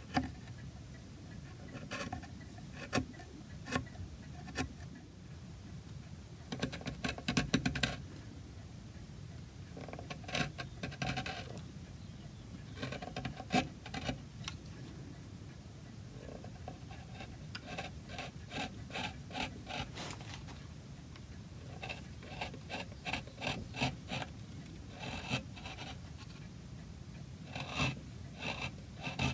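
Small hand carving tool cutting fine detail into walnut: runs of quick little scraping cuts, coming in clusters a few seconds apart.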